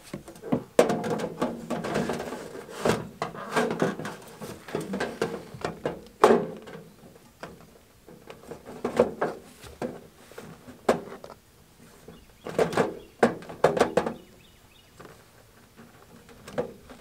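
Rain-barrel diverter being pushed onto a cut downspout and pressed into place: irregular knocks, clicks and scraping as the pieces slide and seat, with a denser stretch of scraping in the first few seconds and scattered thunks after.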